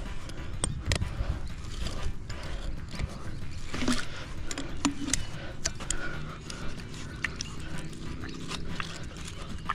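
Pliers gripping and working at the fittings of a buried water pipe in a wet trench: irregular metal clicks and scrapes over a low rumble.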